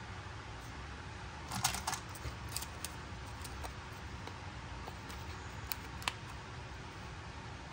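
Small clicks and taps of a miniature toy pizza being handled, set into a tiny cardboard pizza box and the box lid folded shut: a quick cluster of clicks about one and a half seconds in, then a few single taps, the last near the end.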